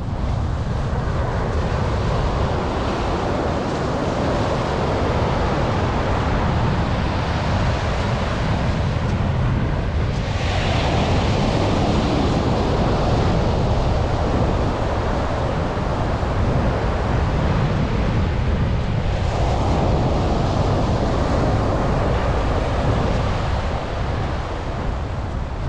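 Atlantic surf washing onto a sandy beach, with wind rumbling on the microphone; a wave's hiss swells about ten seconds in and again a little before the end.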